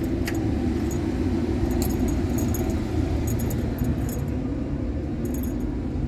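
Light metallic clinks of small bolts and a hand tool being handled at a door fitting, in small scattered clusters, over a steady low rumble.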